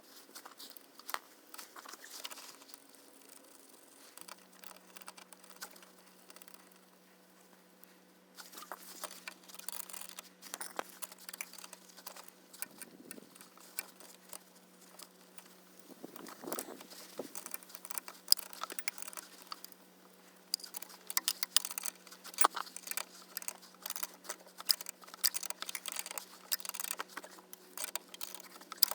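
Hand tools working loose an inner tie rod end on a steering rack: irregular metallic clicks, clinks and scraping. They are sparse at first and become rapid and busier from about eight seconds in.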